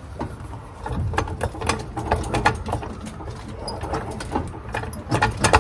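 Quick, irregular metallic clicking and clatter of hands and tools working on a car's transmission, which rests on a floor jack; several clicks a second, getting louder near the end.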